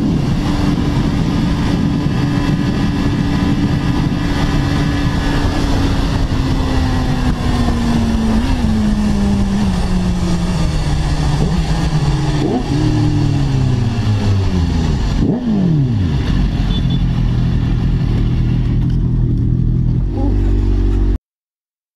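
BMW 1000cc sport bike's engine heard from on board, slowing from very high speed: the engine note falls steadily under wind rush, then the revs are blipped sharply twice on downshifts, about twelve and fifteen seconds in, before settling to a low, steady running note. The sound cuts off abruptly near the end.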